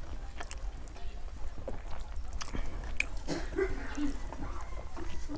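Mouth sounds of eating close to the microphone: chewing and biting on rice and fish curry, with small scattered clicks as fingers mix and pick up rice on a steel plate. A few short pitched sounds rise in the background about three and a half seconds in.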